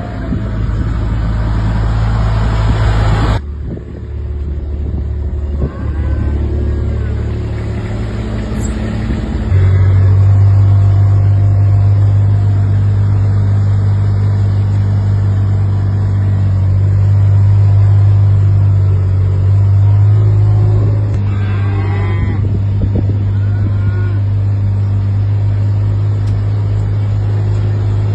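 A vehicle engine running steadily with a low hum, which grows louder about a third of the way through, while cattle moo now and then.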